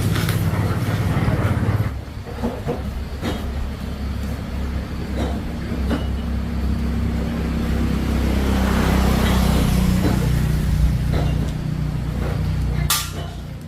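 A small engine running steadily, with a few knocks and a short sharp burst of noise near the end.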